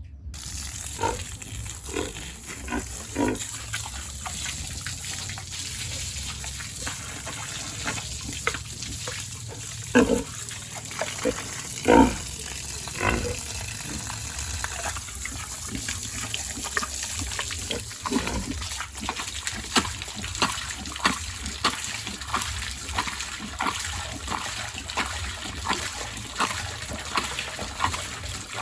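Pigs grunting over and over in short calls, with two louder calls about ten and twelve seconds in.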